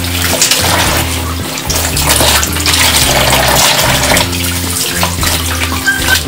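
Tap water running and splashing into a plastic basin while a bundle of pandan leaves is rinsed and rubbed under the stream.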